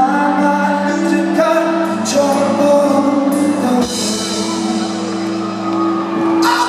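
Alternative rock band playing live in an arena, a male lead singer's voice over the instruments. About four seconds in the bass drops away and a held note carries on.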